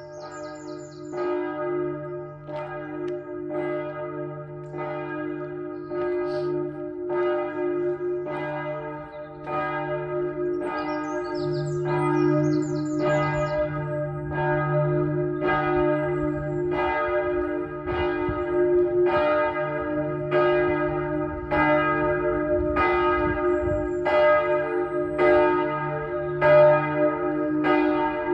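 Church bells of Notre-Dame-de-la-Paix ringing, with strokes about once a second over the bells' steady, lingering hum. A few brief high chirps come near the start and again about eleven seconds in.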